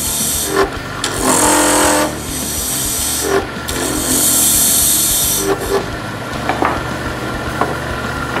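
Small lathe running steadily while a turning tool cuts into a spinning acrylic duck call insert: two long hissing cuts, about a second and nearly two seconds long, with shorter scrapes between and after, as the lanyard groove diameter is turned down.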